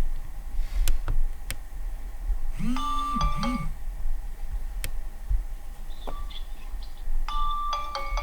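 Huawei Y70 smartphone speaker playing short previews of built-in alarm tones: a bright chime with a bouncing low tone about three seconds in, fainter tones around six seconds, and another chime near the end. A few sharp clicks fall between them.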